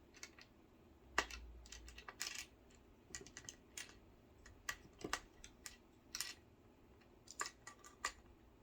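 Irregular small clicks and taps of a four-prong plastic power plug being pushed and turned against its socket, not seating because it isn't lined up with its notch.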